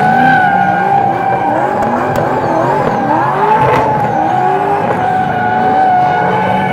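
Drift cars sliding sideways in tandem: tyres squealing in a steady high screech while the engines rev up and down over and over.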